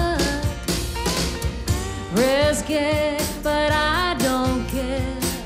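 Live band music: a woman singing lead, holding and bending long notes, over the band's accompaniment.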